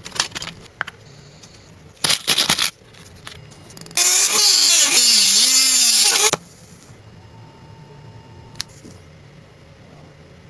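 Workshop tool sounds: a few sharp clicks and a short clatter, then a power tool runs loudly for about two seconds with a wavering pitch and cuts off suddenly.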